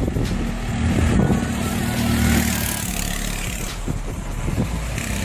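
Go-kart's Honda GX200 single-cylinder four-stroke engine running at speed as the kart drives past, strongest for the first three seconds or so and then weaker as it moves away.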